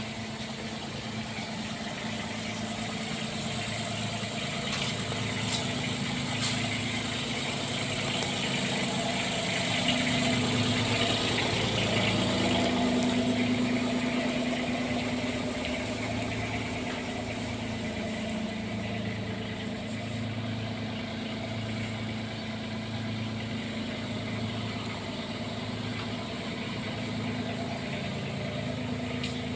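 Bobcat 322 mini excavator's diesel engine running steadily, louder for a few seconds around the middle, with a slow even pulse about once a second.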